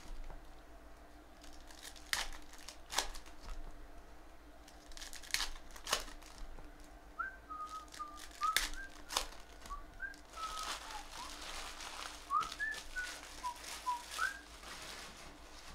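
Foil wrappers of Panini basketball card packs crinkling and tearing open in sharp crackles, denser around the middle. From about seven seconds in, someone whistles a string of short notes.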